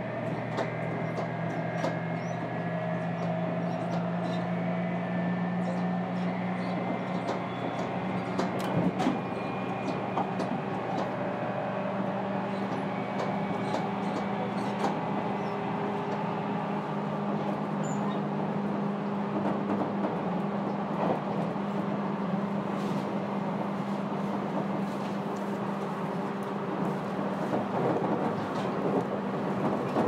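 Running sound inside a JR Kyushu 811 series 100-subseries motor car between stations, with the steady hum of its thyristor phase-controlled traction equipment and motors. The low hum shifts pitch about eight seconds in. Clicks of the wheels over rail joints come through at intervals.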